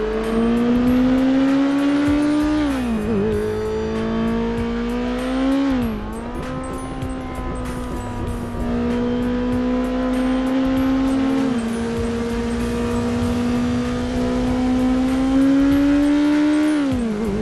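KTM 690 Duke's single-cylinder engine under way, its pitch climbing steadily under throttle and dropping sharply as the throttle closes, about three, six and seventeen seconds in. Wind rumbles on the microphone throughout.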